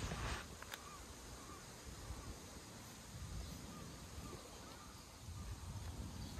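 Quiet outdoor background noise with a low rumble and faint, scattered bird chirps. A brief rustle and a click come near the start.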